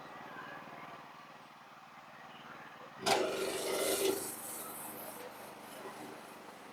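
Sawmill machinery running steadily, then about three seconds in a sudden loud rasping scrape of wood with a tone in it, lasting about a second before settling back.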